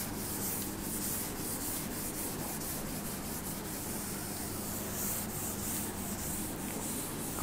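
Chalkboard duster wiping chalk writing off a green chalkboard: a steady scratchy scrubbing made of many short back-and-forth strokes.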